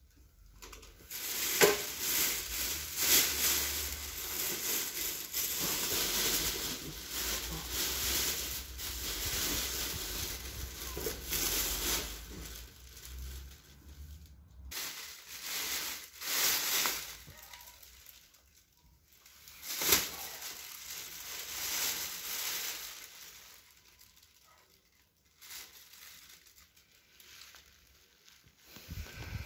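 Crinkly rustling, with a low rumble underneath through the first half, then several separate bursts of rustling.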